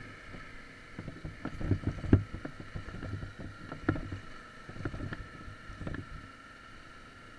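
Dirt bike engine running steadily at low speed, with a series of knocks and rattles from the bike jolting over stones on a rocky track, the loudest about two seconds in.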